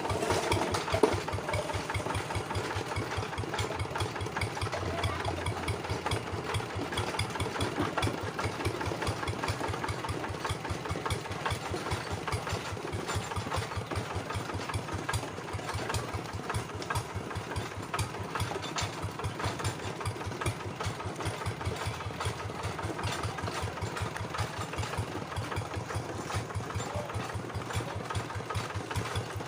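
Single-cylinder diesel engine of a two-wheel hand tractor running steadily with an even, rapid chug, with one sharp knock about a second in.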